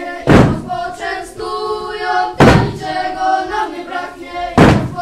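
A group of children singing a folk carol together in a chanting unison. Three loud thumps on the wooden stage floor, about two seconds apart, keep time with the song.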